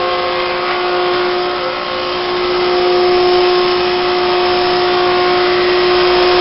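Electric motor spinning a magnet rotor past a copper strap ring in a homemade magnetic (eddy-current) heater. It runs with a loud, steady whine over an even whoosh.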